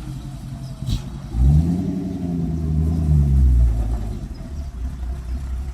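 1956 Ford F-250's engine running, with a short sharp knock about a second in, then revving up and easing back down.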